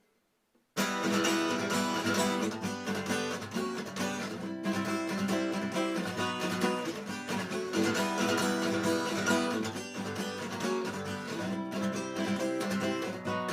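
Acoustic guitar strummed in steady rhythm, playing chords as an instrumental intro; it starts abruptly just under a second in.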